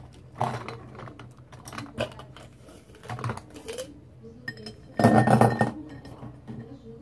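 Pens and coloured pencils rattling and clicking against a mug and cup as they are sorted by hand, with a louder clatter about five seconds in.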